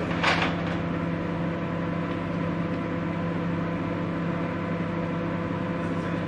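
A microwave oven running: a steady electrical hum of several constant tones, with a brief noisy sound just at the start.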